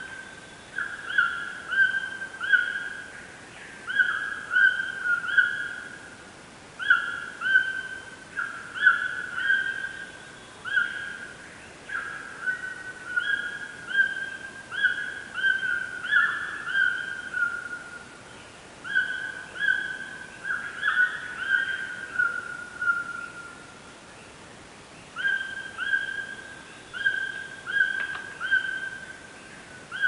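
Someone whistling short, clear notes at nearly the same pitch, in quick groups of two to four with brief pauses between, each note dipping slightly at its end.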